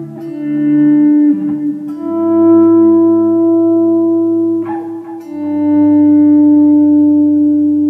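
Electric guitar in drop D tuning playing sustained chords through a Line 6 DL4 delay pedal set to auto-volume echo, so each chord swells in softly without a pick attack. The chord changes about two seconds in and again about five seconds in, with a low D ringing under the last chord.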